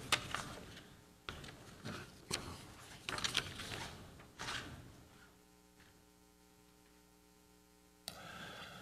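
Paper rustling and handling noises in several separate bursts over the first five seconds, then near quiet with a steady low hum. A faint rustle returns near the end.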